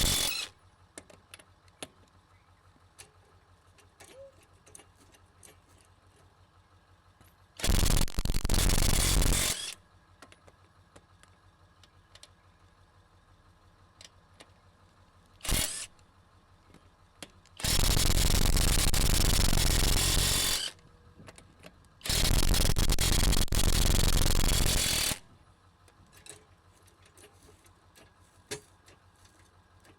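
RobusTrue 1/2-inch electric impact wrench run in bursts: one of about two seconds, a brief blip, then two runs of about three seconds each close together, with faint clicks and handling noise between them.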